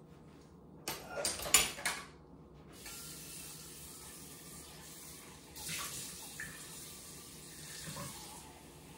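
A few sharp clatters of a container or pot being handled, then kitchen tap water running steadily into it, filling it with water for the stock.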